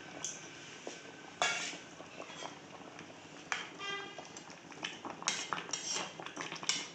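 Metal spoon knocking and scraping against a cooking pot while stirring a simmering fish curry: sharp clinks about a second and a half in and again at three and a half seconds, then a quick run of clinks near the end.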